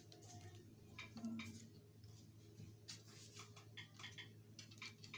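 Faint small clicks and scratching of plastic as the latching clips holding a flat-panel monitor's back cover are released.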